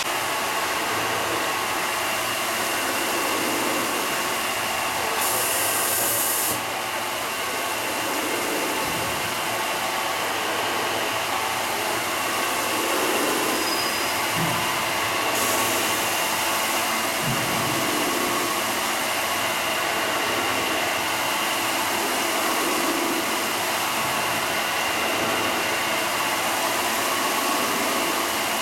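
Nine-head stone slab polishing machine running steadily: motors and abrasive polishing heads spinning on a stone slab, making an even whirring hiss with a faint high whine. A short burst of hiss comes about five seconds in.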